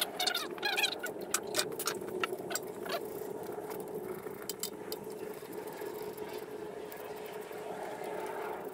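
Light metal clicks of cylinder head nuts and washers being handled and spun onto the head studs by hand, most of them in the first three seconds, over a steady background hum.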